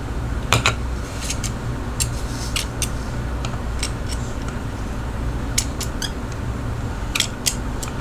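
Scattered sharp clicks and light metal ticks from handling a steel digital caliper as its jaw is slid and set against a small plastic pocket knife sharpener, over a steady low rumble.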